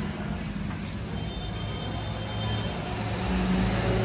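A steady low motor hum that grows louder about three seconds in.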